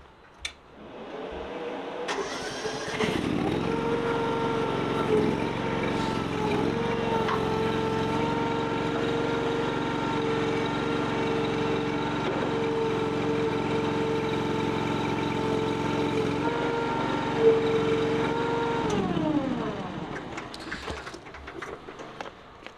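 Honda engine of a sit-on mini skid steer starting up about two seconds in and running steadily with a whine, then shut off near the end, its pitch sliding down as it runs to a stop.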